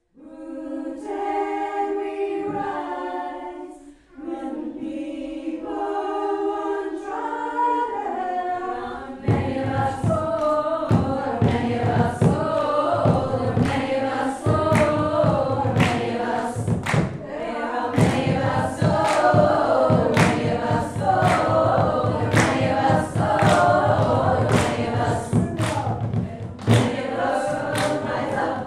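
A group of mixed voices singing together unaccompanied. About nine seconds in, a steady beat of hand drums joins the singing and carries on.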